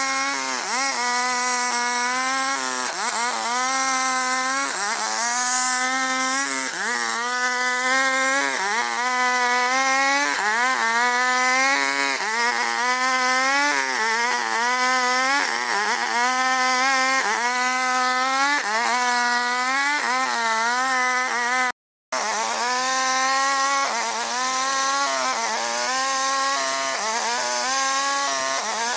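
Two-stroke chainsaw running under load as it cuts albasia wood. Its pitch sags and picks up again about once every second or two as the chain bites, with a brief break of silence about three-quarters of the way through.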